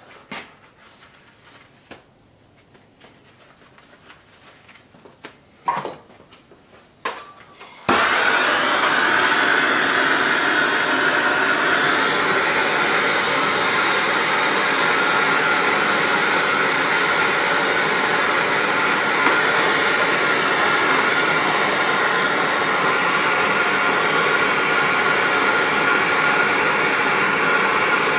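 A few clicks, then about eight seconds in a handheld gas torch lights suddenly and burns with a loud, steady flame. The flame is heating a soldered copper pipe joint to unsweat it.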